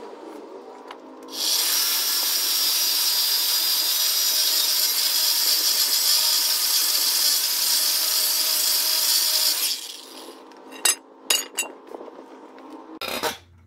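Electric demo saw with an abrasive disc cutting through an old iron gate railing: the motor runs free for a second or so, then the disc bites into the steel with a loud, even grinding noise for about eight seconds. It stops about ten seconds in, and a few sharp metallic clinks and a knock follow near the end.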